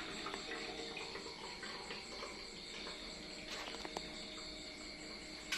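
Crickets chirping steadily in the background. A few light clicks and knocks come from the stainless steel bowl being handled on a dial kitchen scale, the sharpest near the end.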